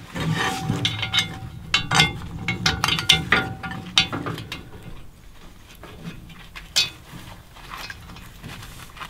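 Metal clicking and clinking as the bolted catch for the draft door is fitted to the cast-iron front of a maple-syrup evaporator arch. The clicks come thick and fast for the first four seconds, then thin out to a few quieter ones with a single knock near the end.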